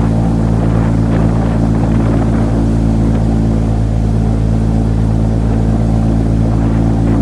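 Airboat's engine and large air propeller running steadily at cruising speed, a loud, even drone.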